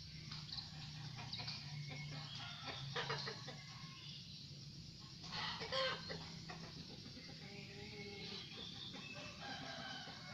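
Chickens clucking faintly in the background, with one louder call about five and a half seconds in, over a steady low hum.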